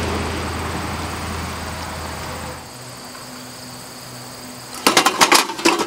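Wind buffeting the microphone with a low rumble that eases off about two and a half seconds in, over a steady high insect trill. Near the end comes a quick flurry of sharp clacks as the copper post-light fixture is fumbled against its mount and nearly dropped.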